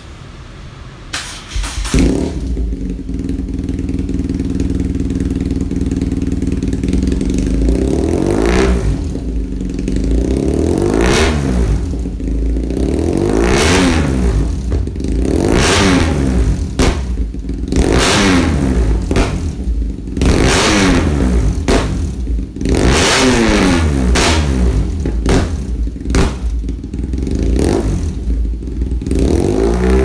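BMW R nineT's 1170 cc air/oil-cooled boxer twin through a UN1T Garage aftermarket exhaust: it starts about two seconds in and idles, then from about eight seconds in is revved in about ten throttle blips, each rising and falling in pitch, with sharp pops between them.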